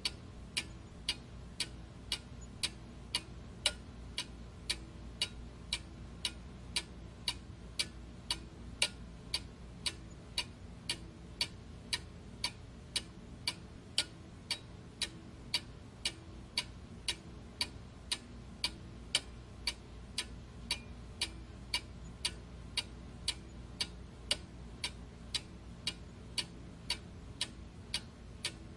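Steady, even ticking, about two ticks a second, like a clock, over a low steady hum.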